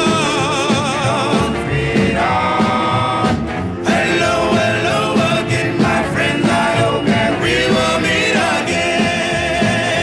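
Doo-wop song played from a 45 rpm single: a vocal group singing over a band with a steady bass line, one voice wavering with wide vibrato near the start.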